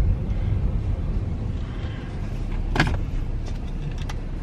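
Low rumble of a car's engine and road noise heard inside the cabin, easing off at the start as the car pulls over. A single sharp click comes nearly three seconds in.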